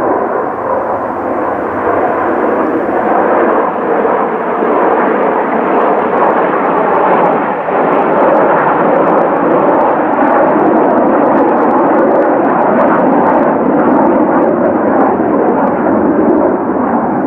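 Kawasaki T-4 jet trainers flying over in formation, their twin turbofans making a loud, steady rushing jet noise.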